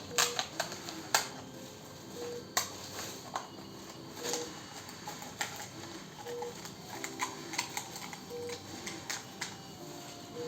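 Scissors cutting through a disposable cup, giving irregular sharp snips and crackles of varying loudness.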